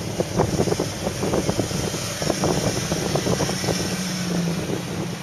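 Jeep Wrangler Rubicon's engine running low as it crawls the trail, under heavy wind buffeting and crackling on the microphone.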